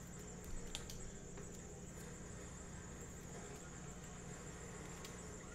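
Quiet room tone with a steady high-pitched whine, and a few soft clicks of trading cards being handled and set down on a table mat, about half a second in and again near the end.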